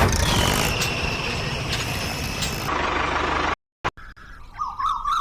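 Loud, steady machine-like noise with a slowly falling high whine, which cuts off abruptly about three and a half seconds in. After a short silence, birds start chirping.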